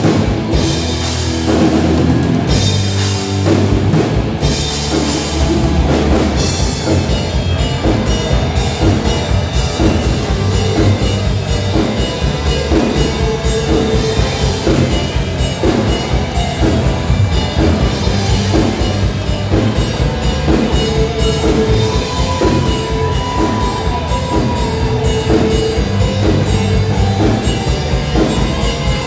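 Live rock band playing an instrumental passage: electric guitars repeating a riff over a steady, driving drum-kit beat.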